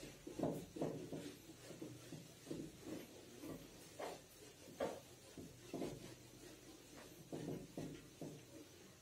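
Whiteboard eraser rubbing across a whiteboard in a series of short, faint wiping strokes.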